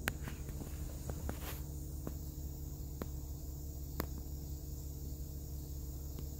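Steady outdoor background: a constant low hum under a high, even chirring of insects, with a few sharp clicks scattered through it, the plainest one about four seconds in.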